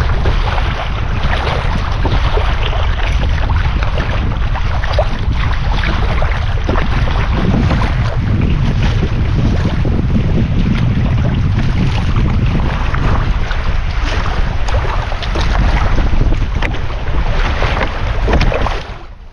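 Strong wind buffeting the microphone over water splashing and lapping around a kayak being paddled through choppy waves.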